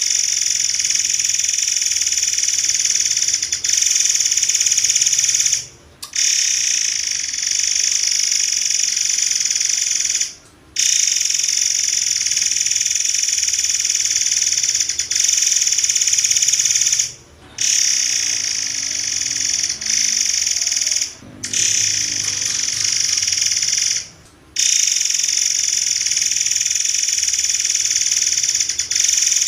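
Murai air birdsong: a dense, high-pitched, rapid-fire trill delivered in long unbroken phrases of several seconds each, with five short breaks between them.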